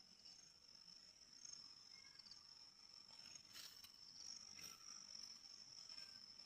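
Near silence with a faint, steady high-pitched cricket trill and a few soft, faint taps.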